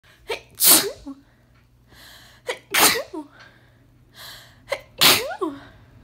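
A woman sneezing uncovered three times, about two seconds apart, each sneeze led by a sharp catching breath in and ending in a short falling voiced tail: an allergic sneezing fit set off by dust.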